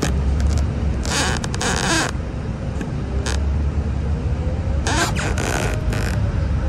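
City bus running, heard from inside the cabin: a steady low engine rumble, with short rattles and knocks of the bus about a second in and again about five seconds in.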